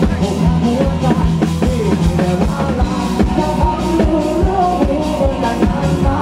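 Live rock band playing over a PA: drum kit keeping a steady beat under electric guitar and bass, with a singer's voice on top.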